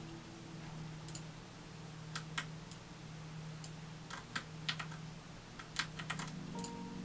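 Typing on a computer keyboard: irregular keystrokes, scattered singly at first and coming more often from about four seconds in, over a steady low hum.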